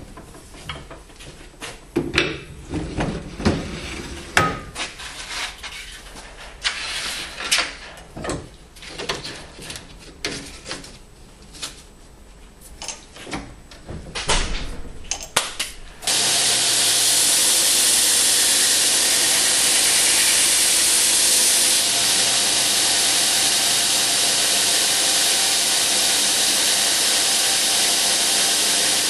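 Clanks and knocks of steel parts as a belt grinder's contact wheel is swapped for a flat platen attachment. About halfway through, the belt grinder starts suddenly and runs on steadily, its abrasive belt giving a loud, even hiss over the motor's hum.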